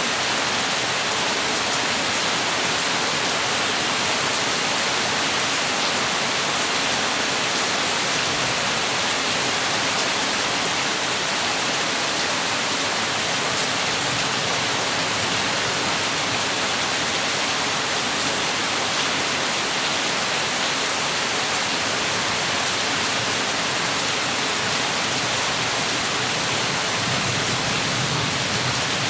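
Heavy rain falling steadily, a dense even hiss of drops with no thunder or breaks.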